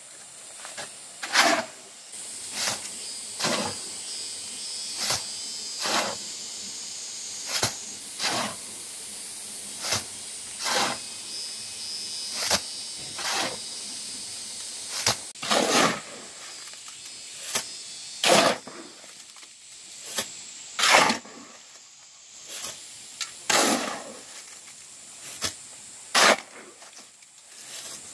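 Hand tools scraping through sand or mortar in repeated short strokes, one every one to two seconds, over a steady high hiss.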